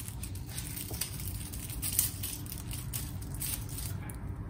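Irregular crinkling and crackling of thin plastic as a drinking straw is pulled off a small drink carton and unwrapped, with a few sharper crackles.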